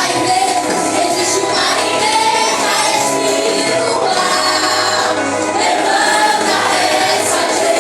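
Choir singing Christian worship music with instrumental accompaniment.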